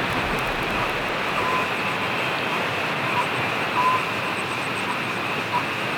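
Heavy rain falling steadily, a dense even hiss, with a few brief high plinks scattered through it.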